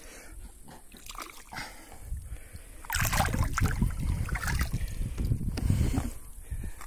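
Water and fish poured from a tipped plastic bucket into a pond, splashing and sloshing. It starts abruptly about three seconds in and lasts about three seconds.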